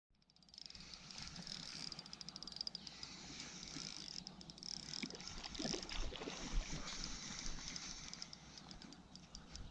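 Gentle water lapping at the edge of a sandy beach, a quiet steady wash with fine ticking, fading in from silence at the start, with a few soft low bumps around the middle.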